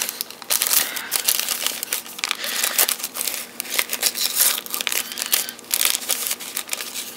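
Small alcohol-wipe packet from a screen-protector kit crinkling as it is handled, in irregular crackles.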